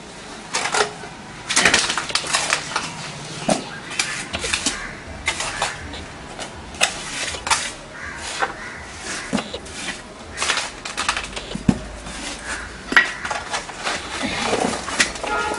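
Trowel scraping and clinking against a mortar pan while scooping and spreading wet cement-and-sand mortar, in irregular strokes.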